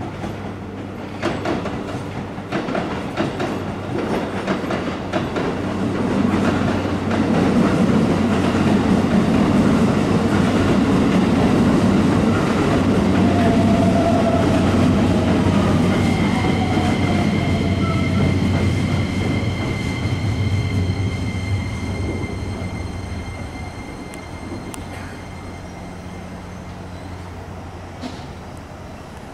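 Keikyu electric train running through the station, its wheels clicking over rail joints, the rumble building up, holding for several seconds, then fading away. A high steady whine comes in past the middle.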